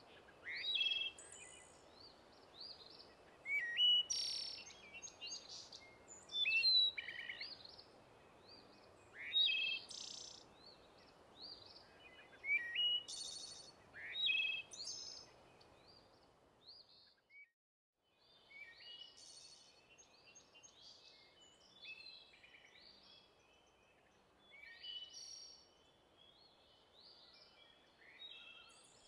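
Several songbirds singing and calling in short chirps and trills over a soft, steady background hiss. The sound cuts out briefly just past halfway, and the birdsong then carries on more quietly.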